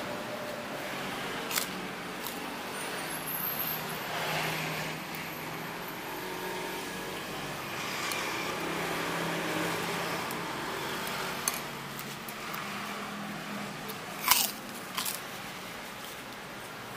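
A person eating a bowl of chicken curry with rice cake, chewing and crunching, over a steady background hum. A few sharp clinks cut through, the loudest two about fourteen and fifteen seconds in.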